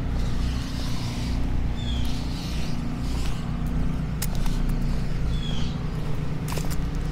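A steady low engine drone runs throughout, with a few short high chirps over it.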